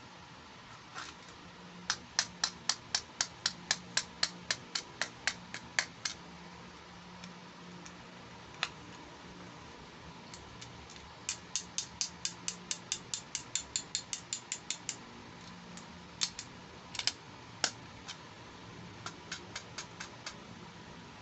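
Sharp clicks in quick, even runs of about five a second, in two long runs and a few short ones, like a small ratcheting plastic mechanism being turned.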